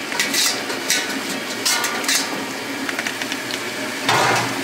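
A metal plate clinks and scrapes against the rim of a large aluminium cooking pot as sliced tomatoes are tipped into simmering masala, over a steady hiss. About four seconds in there is a louder, fuller clatter.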